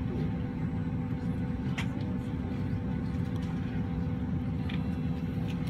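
Steady cabin noise inside a Boeing 767-300ER stopped on the ramp: a low rumble with a thin, even hum over it and a few faint clicks.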